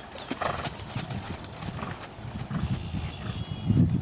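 Horse trotting on a grass-and-dirt field, its hooves thudding in a steady rhythm, with the heaviest thud near the end.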